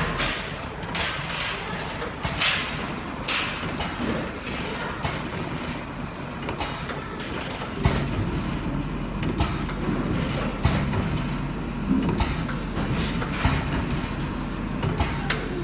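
Cookie depositor machine running: a steady low hum with repeated short hisses and clacks as it cycles.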